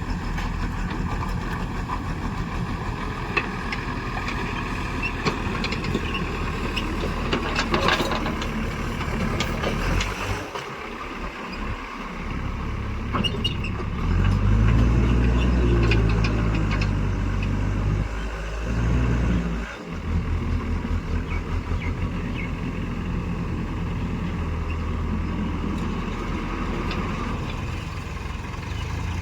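A heavy machine's diesel engine running steadily. It dips briefly twice and gets louder for a few seconds about halfway through.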